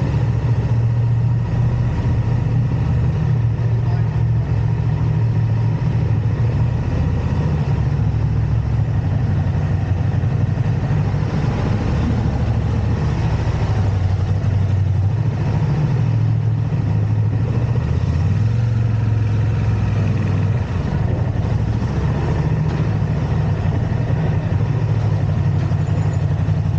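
A motor vehicle engine running steadily, a deep low hum that steps slightly down and up in pitch now and then.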